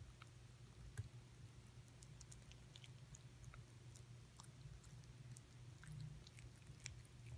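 Small dog chewing a dog treat: faint, irregular crunching and clicking bites.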